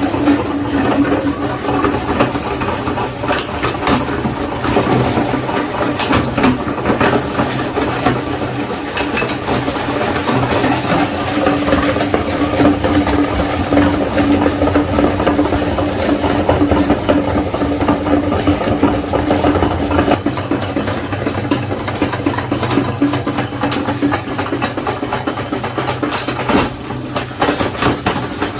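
Electric meat grinder running with a steady motor hum, crunching and crackling as it grinds chocolate-coated Magnum ice cream bars.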